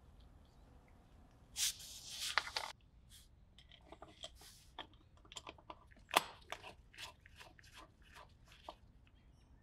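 A brief rustle about two seconds in, then a string of small clicks and scrapes as a screwdriver turns a screw into the hoof knife's metal handle, the sharpest click about six seconds in.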